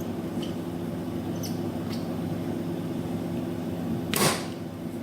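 Spring-loaded desoldering pump fired once about four seconds in: a sharp snap with a brief whoosh as the plunger shoots back and sucks molten solder off a pin. Under it runs a steady low hum with a few faint clicks.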